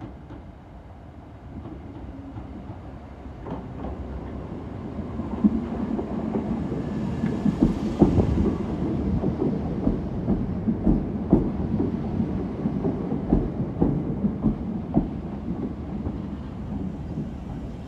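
British Rail Class 318 electric multiple unit pulling in alongside the platform. Its rumble builds as it draws level, with many sharp clicks from the wheels on the track, then eases off near the end as the train slows.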